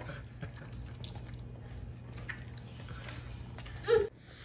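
Quiet eating sounds: scattered small clicks and squishes of chewing food over a steady low hum, with a short voiced sound just before the end.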